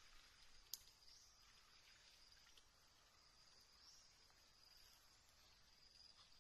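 Near silence with faint, steady high-pitched insect chirring, and a single sharp click about three-quarters of a second in.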